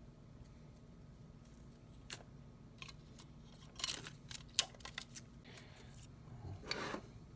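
Packaging being handled during an unboxing of Sakuma Drops hard candy: scattered sharp clicks and taps, busiest in the middle, then a short rustle near the end.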